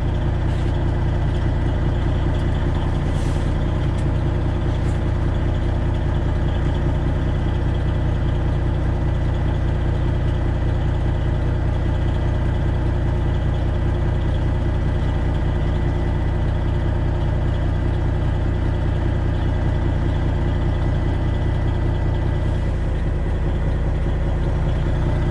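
Semi truck's Detroit Diesel 12.7-litre Series 60 engine running steadily near idle while the rig creeps slowly in reverse.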